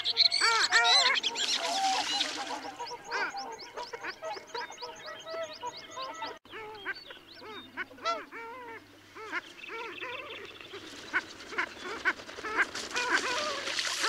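A flock of long-tailed ducks calling: many overlapping yodelling calls from the drakes, each note rising and falling in an arch. The calling is densest and loudest in the first few seconds and again near the end, thinner in between, with a quick series of high notes in the middle.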